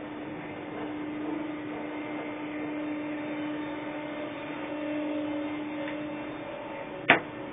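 A steady machine hum with a higher overtone from the Ferris wheel's machinery as the capsule passes through the base of the wheel. It fades out about six and a half seconds in and is followed by a single sharp click.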